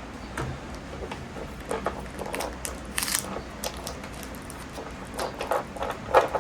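Close-up handling of small parts and tape: scattered light clicks and rustling, with a brief ripping sound about three seconds in, as tape is put around a desoldered battery wire to keep it from shorting.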